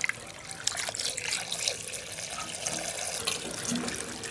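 Water sloshing and splashing as hands swish and rub sliced raw potatoes in a bowl of water to wash off the starch. It runs as a steady wash of water noise broken by many small splashes.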